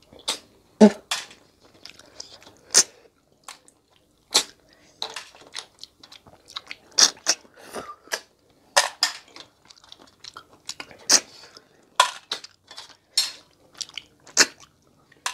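Close-miked eating of river snails (tharoi) in curry: short, sharp sucking slurps as the snails are drawn out of their shells, coming irregularly, with chewing in between.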